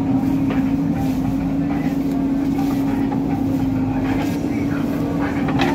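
Diesel engines of a JCB 3DX backhoe loader and a farm tractor running steadily with a constant hum while the backhoe loads soil. A few sharp knocks come in the second half.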